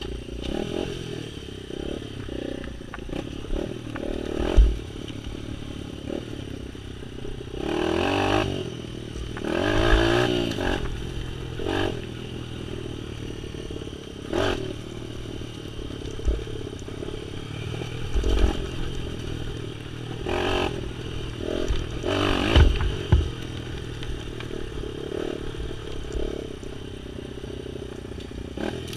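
Small off-road vehicle engine running as it rides a rough dirt trail, its revs rising and falling several times, with scraping, clattering and a few sharp knocks from the bumpy ground.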